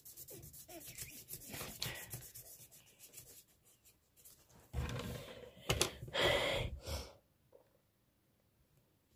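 Paper blending stump rubbing over pencil graphite on drawing paper, a dry scratchy rubbing for the first few seconds. It is followed by a few louder noisy swishes about five to seven seconds in.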